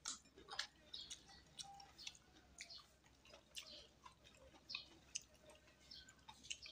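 Faint chewing and wet mouth smacks from a man eating rice and fish with his hands: quiet, irregular clicks and smacks a few times a second over near silence.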